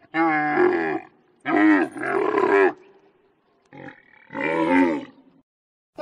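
Camel calling: about four loud, pitched calls in a row, each around a second long with brief gaps between, the second call the longest.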